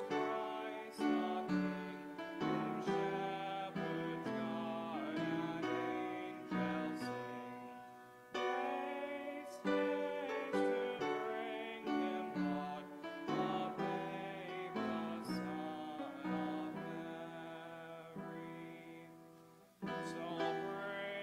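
Acoustic guitar playing a slow hymn accompaniment, chords and notes plucked and strummed and left ringing to fade out between phrases.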